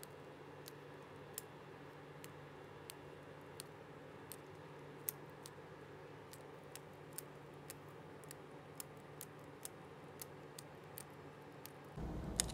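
Plastic cable-chain (drag-chain) links being popped open one after another with a small flathead screwdriver: a series of short, sharp clicks, about one or two a second, over a faint steady hum.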